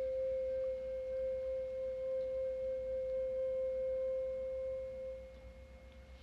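A steady, pure ringing tone with faint higher overtones, used for sound healing, holding level and then fading away about five seconds in.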